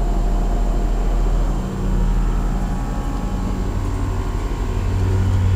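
Bryant Evolution 16 SEER two-stage heat pump outdoor unit running in cooling mode: a steady low hum with a rush of air over it.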